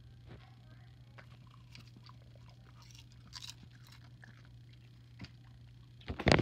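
A dog chewing popcorn: faint, scattered crunches over a low steady hum, then a louder burst of crunching near the end.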